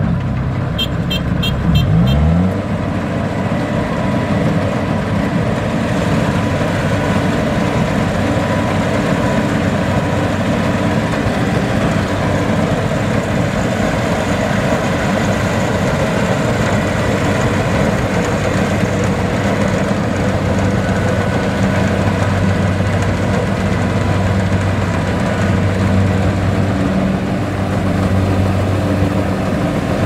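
Kubota DC-70 Plus combine harvester's diesel engine running steadily as the machine moves on its tracks. Near the start there is a short run of high beeps, and the engine revs up just after.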